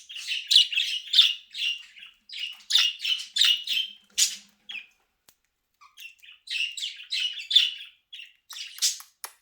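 Pet budgies chattering and chirping in quick runs of short, high notes, with a brief pause about halfway through.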